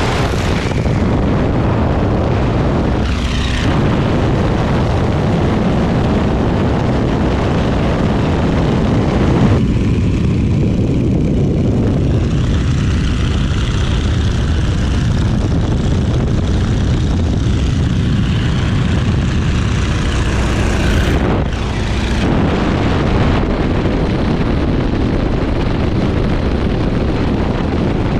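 A Boeing Stearman biplane's radial engine and propeller running in flight, heard from the open cockpit with heavy wind rush. The sound is loud and steady, and its tone changes for about ten seconds in the middle before coming back.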